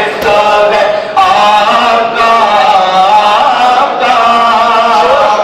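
Male voices chanting a devotional refrain through a microphone, sung in long, wavering held notes that step in pitch every second or so.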